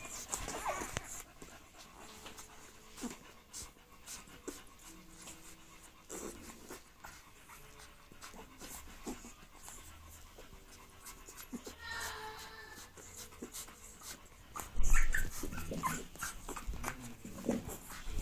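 American Bully puppies nursing, with many small suckling clicks and a few short squeaks, one brief high squeal about twelve seconds in, over a dog's breathing. A loud bump comes about fifteen seconds in.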